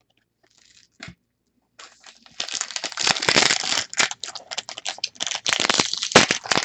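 Trading card pack wrapper crinkling and tearing as it is opened, starting about two seconds in after a single click.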